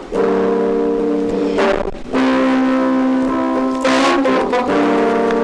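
Instrumental music: full sustained chords, each held about two seconds, with short breaks between them.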